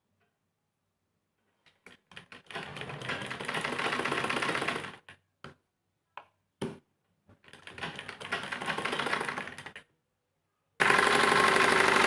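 Sewing machine stitching fabric in three runs of rapid, even clatter, each about two seconds long and starting about two seconds in, with a single click in the pause between the first two; the last run is the loudest.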